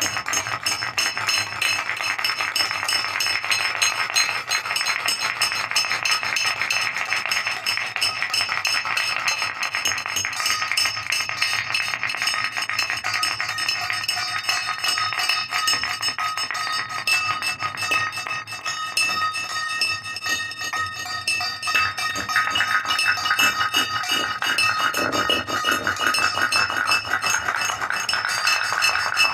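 Soundtrack music made of a dense, continuous clinking and jangling texture of many overlapping metallic, glassy tones, with a lower tone joining briefly near the end.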